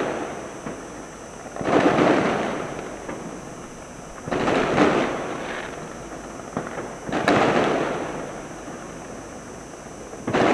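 Aerial firework shells bursting in a large display: three heavy booms about three seconds apart, each rolling away over a second or two, with a fourth starting at the very end and a few smaller sharp pops between.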